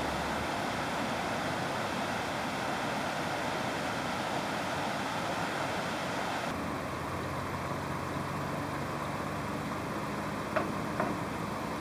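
Distant city traffic noise, a steady rumble and hiss of vehicles. About six and a half seconds in the hiss drops and a steady low hum comes in, and near the end two short sharp sounds stand out.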